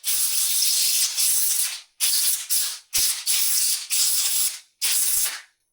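Compressed air blown through a chainsaw carburetor to clear out dirt: four loud hissing blasts, the first about two seconds long and the others shorter, each cut off sharply.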